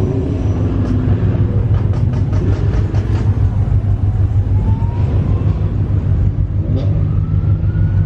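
A car engine idling with a steady low rumble, heard from inside a car.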